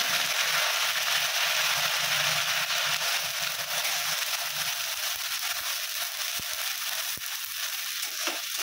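Onion paste sizzling hard in hot oil in an aluminium kadai, freshly added and being stirred with a spatula; the sizzle eases off gradually, with a couple of light spatula taps near the end.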